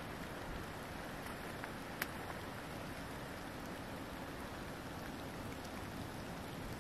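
Steady outdoor background hiss, with one sharp click about two seconds in.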